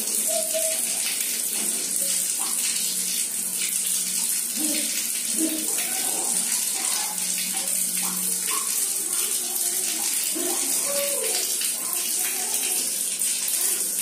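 Water running steadily from a wall tap in a thin stream and splashing onto a tiled floor.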